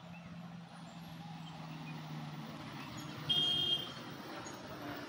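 Diesel bus engine running as the bus takes a hairpin bend, growing steadily louder as it approaches. A little over three seconds in, a horn gives one short blast.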